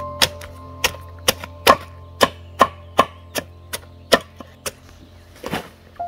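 A blade chopping in sharp, regular strokes, about two a second, over faint background music.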